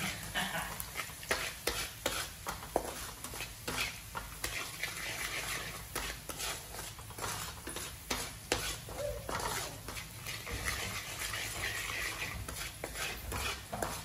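Wooden spatula scraping and stirring minced garlic around a metal frying pan in many irregular short strokes, over a low sizzle of the garlic frying in oil.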